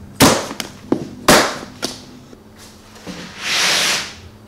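Plastic packing straps on a solar panel's cardboard shipping box snapping as they are cut: two sharp snaps about a second apart with lighter clicks between. Near the end, a longer scraping rustle of cardboard as the panel is pulled from the box.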